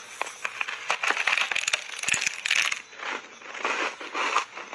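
Refrozen block ice coated in matcha tea powder being bitten and chewed: sharp cracks and crunching, a dense run in the middle, then slower separate crunches toward the end.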